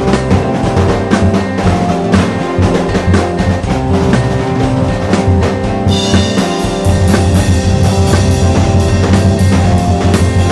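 Drum kit playing a steady beat of kick, snare and rim hits along with an instrumental music track with sustained chords. About six seconds in, a bright cymbal wash comes in and the bass gets heavier.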